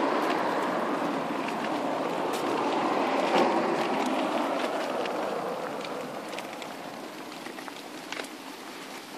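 Cosatto Ooba pram's wheels rolling over tarmac and paving: a steady rumbling rush with small clicks and rattles, growing quieter over the second half.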